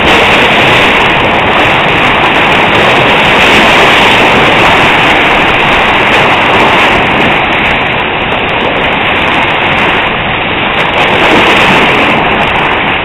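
Loud, steady rushing of rough sea and wind, swelling and easing slightly, with no distinct engine note.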